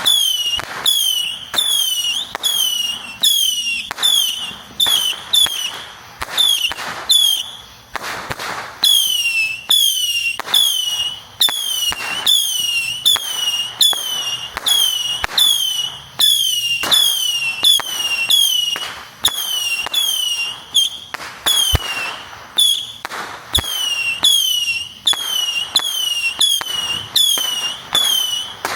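Consumer firework cake firing a long string of whistling shots, about three every two seconds, each a short falling whistle, with pops and crackling between them.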